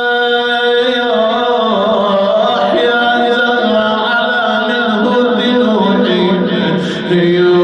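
A man chanting unaccompanied: a slow melodic line of long held notes that bend and slide between pitches.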